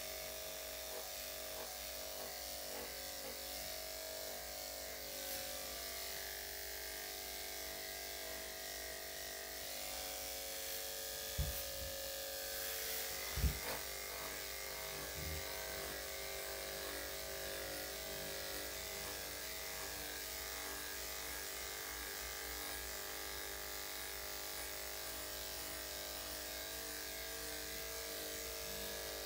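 Electric dog grooming clippers with a #7 blade running with a steady hum as they clip a dog's coat. Two brief knocks stand out, about eleven and thirteen seconds in.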